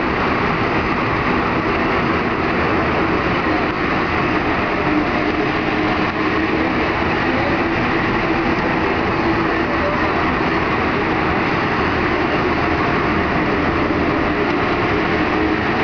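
Alstom NS-93 rubber-tyred metro train running through a tunnel, heard from inside the leading car: a steady rolling and running noise with a constant low hum.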